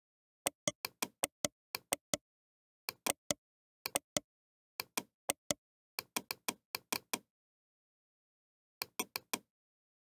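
Computer mouse buttons clicking: many short, sharp clicks in quick runs and pairs, with a pause of a second or so before a last run of clicks near the end.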